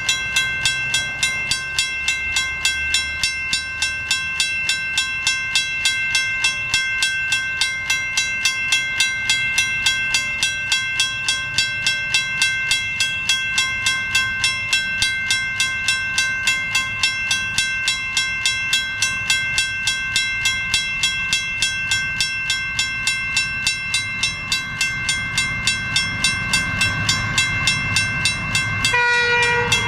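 Western Cullen Hayes mechanical level-crossing bells ringing: a steady run of strokes, about three a second, each leaving a ringing tone, sounding the warning while the crossing is activated for an approaching train. A low rumble builds over the last few seconds, and a short pitched sound cuts in just before the end.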